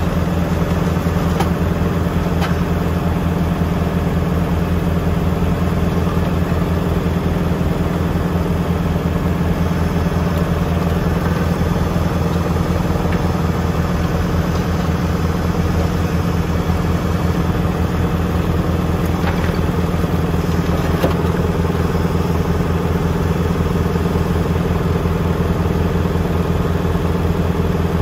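Tractor diesel engine running at a steady speed, with a low, even hum and a few faint clicks.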